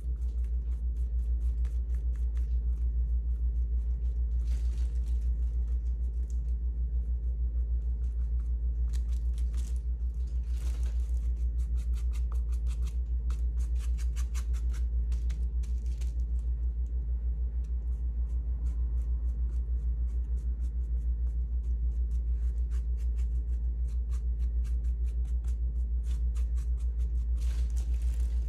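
A steady, pulsing low rumble, with faint scrapes from a brush working paint now and then.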